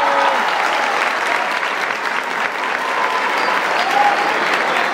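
Audience clapping and cheering after a dance. The last held note of the song ends just as the clapping takes over.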